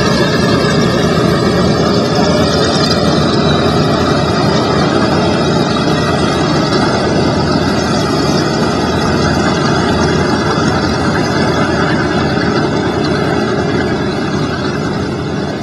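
The four nine-cylinder Wright R-1820 Cyclone radial engines of a B-17 Flying Fortress running with a steady, heavy drone as the bomber taxis away, the sound easing off slightly near the end.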